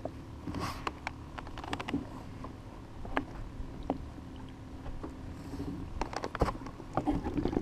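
Scattered knocks, taps and wet slaps as an angler handles a fish on his lap in a kayak, over a low wind rumble on the microphone. The knocks come closer together and louder about six seconds in.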